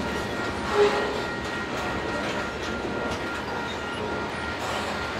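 Loaded grain train of covered hopper cars rolling past: a steady rumble and clatter of steel wheels on rail, with one brief, louder clank about a second in. A faint steady high tone sits underneath.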